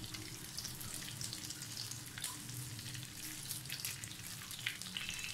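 Beef patties sizzling in oil on a flat non-stick pan, with scattered small crackles and pops.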